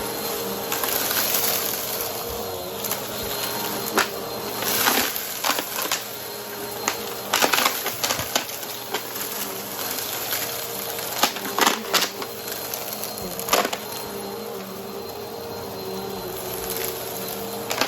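Vacuum cleaner running steadily with its motor whine, its brushroll picking up crunchy debris in a series of sharp, irregular crackles and snaps.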